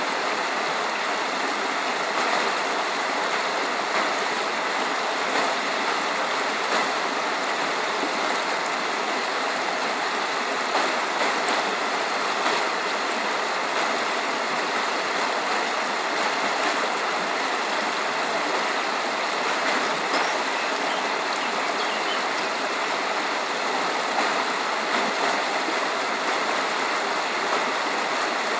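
Water pouring steadily over a low weir and churning into white water at its foot: an even, unbroken rush.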